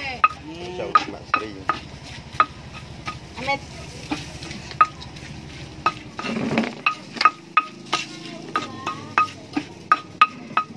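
Stone pestle knocking and scraping against a stone mortar as cut fruit is crushed and mixed for rujak ulek. The knocks are sharp and irregular, each with a short ring, and come faster in the second half.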